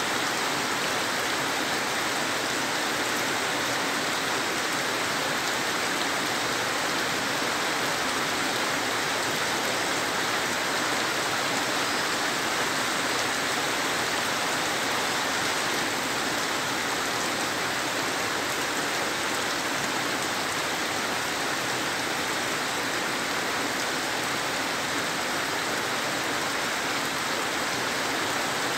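Heavy rain falling on dense broad leaves and a waterlogged yard, a steady, even rush that neither swells nor breaks.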